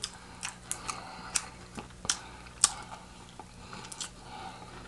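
Close-miked chewing of fried chicken: scattered sharp crunches and mouth clicks, irregular, about two a second.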